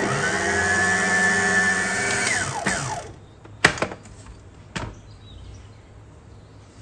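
Philips stand mixer's motor whining steadily as its wire whisk beats cake batter, then winding down with a falling pitch and stopping about three seconds in. Two sharp clicks follow as the mixer head is raised.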